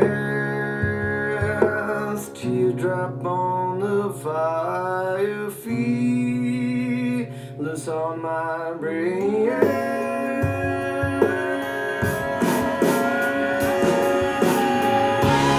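Guitar-led recorded music played back over a hi-fi loudspeaker system, growing fuller and brighter in the last few seconds.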